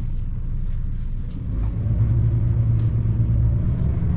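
A motor vehicle's engine running, a low steady rumble that grows louder about a second and a half in, as if the vehicle is drawing closer.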